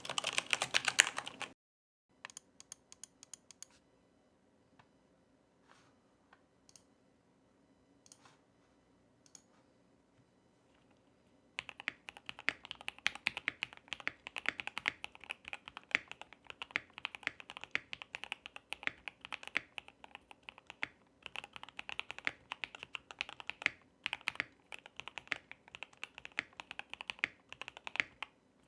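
Typing on a KBD75 v3.1 custom mechanical keyboard with a polycarbonate plate, lubed and filmed C3 Tangerine linear switches and PBT keycaps. For the first ten seconds or so there are scattered single keystrokes, then steady fast typing with a couple of brief pauses. A short louder sound comes right at the start.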